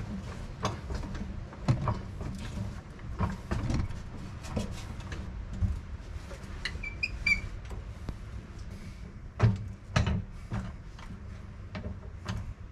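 Irregular clunks, knocks and scrapes of a car's fuel tank and its mounting parts being handled and worked up into place, with two louder thuds about three quarters of the way through.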